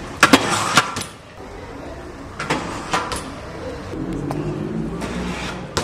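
BMX bike knocking and clattering on stone steps: a quick run of sharp knocks in the first second, and more about two and a half to three seconds in. A steadier low sound follows in the last two seconds.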